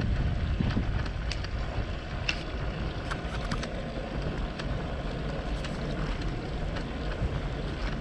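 Wind buffeting a bicycle-mounted GoPro microphone together with tyre noise of a tandem bicycle rolling on a paved lane, a steady low rumble with scattered light ticks.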